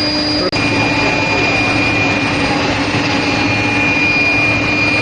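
Steel plate induction hardening machine running: a steady rushing roar with a steady high whine and a lower hum over it. The sound cuts out for an instant about half a second in.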